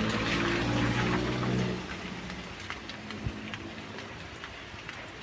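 Rain falling steadily, with scattered drops ticking on a surface. A vehicle engine hums over it for the first couple of seconds, then fades out and leaves only the rain.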